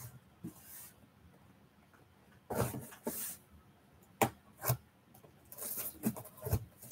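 Packing tape on top of a cardboard box being cut and picked open by hand. It makes short scratchy rasps, a couple of sharp clicks, and a cluster of scraping near the end.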